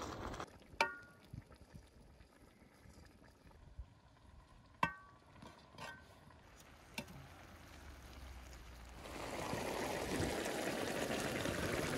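A perforated metal skimmer clinks a few times against the rim of a metal cooking cauldron, each clink ringing briefly. From about nine seconds in, a steady bubbling of the broth boiling in the cauldron.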